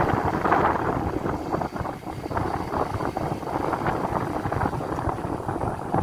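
Rumbling noise of a moving vehicle travelling along a paved road, with wind buffeting the microphone.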